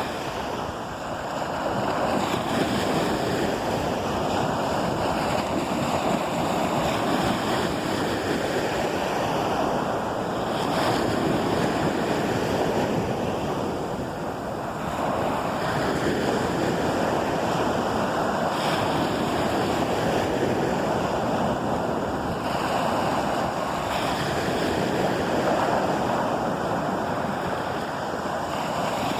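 Surf washing onto a beach in a steady, rushing wash that swells and eases slowly, with wind noise on the phone's microphone.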